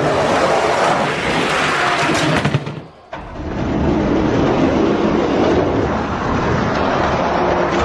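Toy die-cast monster trucks rolling down a plastic Hot Wheels track, a steady rattling rumble. It breaks off briefly about three seconds in, then carries on.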